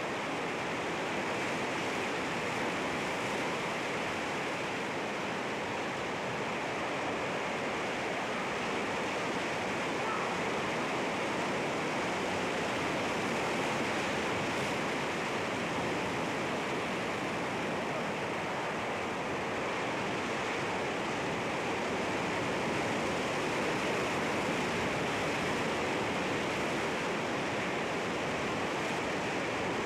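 Sea waves washing against rocks: a steady, continuous rush of surf with only slight swells in level.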